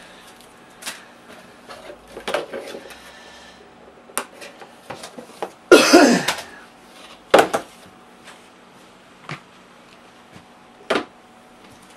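Scattered clicks, taps and rustles of hands handling a CD, its cardboard box and the front of a desktop PC, with a louder rasping burst about six seconds in, a sharp click a moment later and another near the end. A faint steady hum from the running PC sits underneath.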